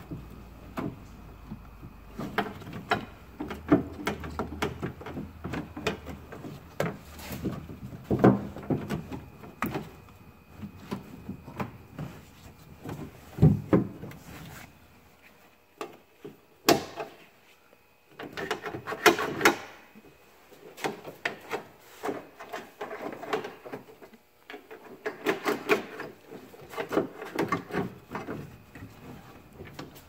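Irregular knocks, clicks and rubbing from hands and a socket tool handling hardware inside the bare metal door shell of a 2002 Jeep Liberty. The sounds go quiet for a few seconds in the middle, then come back as dense runs of clicking.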